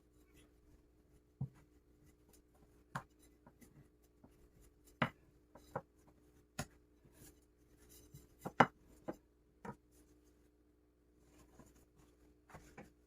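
Scattered light knocks and taps of hands and utensils on a kitchen work surface: about a dozen short clicks, a couple of them sharper, the loudest a little past halfway. A faint steady hum lies underneath.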